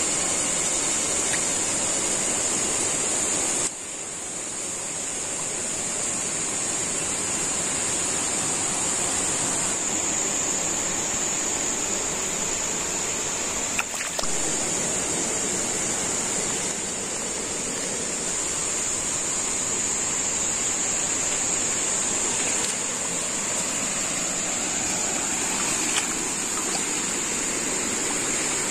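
Steady outdoor forest ambience: an even rushing hiss like running water, under a high, steady shrill drone. The mix shifts slightly a few times.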